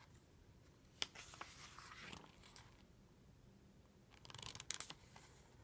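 Faint rustle and crinkle of a picture book's paper page being turned, starting with a click about a second in, then a second, shorter rustle with a few clicks about four seconds in.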